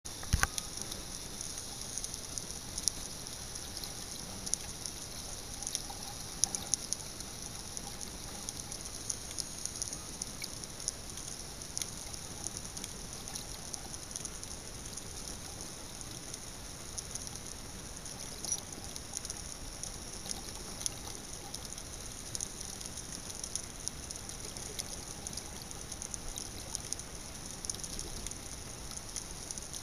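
Underwater ambience over a coral reef: a steady high hiss with many scattered short clicks and crackles.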